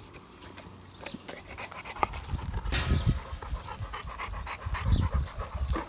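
Dogue de Bordeaux dogs panting heavily close by, in a run of rough breaths, with a short rushing noise about three seconds in.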